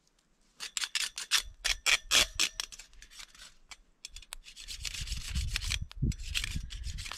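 A flat cleaning scraper rasped along the bars of a Bitty Big Q wire grill grate to clear off stuck bits: a quick series of short strokes, then a longer continuous scrape in the second half.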